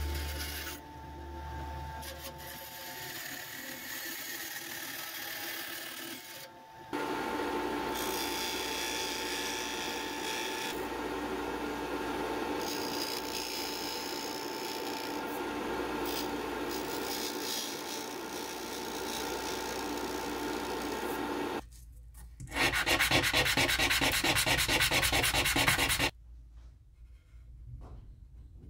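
A benchtop band saw cuts thin Lexan polycarbonate sheet for the first several seconds. Then a Porter-Cable disc sander grinds the edge of a small Lexan lure lip: a steady rasping with a faint hum. Near the end comes a louder, rougher rasping of about four seconds, which cuts off suddenly.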